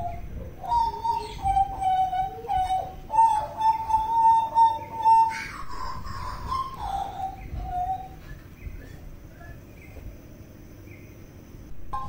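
Hooded butcherbird (jagal papua) singing a run of mellow fluted whistles, one note held for about two seconds, over a steady low rush of water. The song thins out after about eight seconds, leaving only fainter, higher notes.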